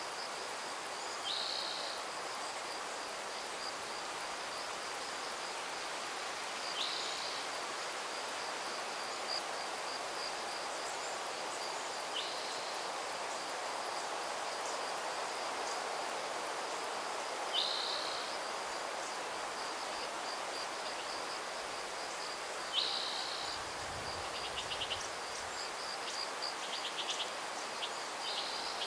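Outdoor ambience of a steady breeze, with a continuous high insect trill and a bird giving a short falling call about every five seconds, five times. A quick rapid ticking comes near the end.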